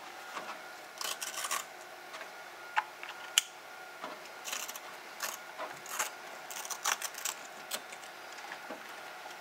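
Handling sounds of a small plastic smart-home hub being strapped onto a perforated metal panel with Velcro straps: scattered clicks and taps, two of them sharp a little before halfway, and several brief rustles of the strap.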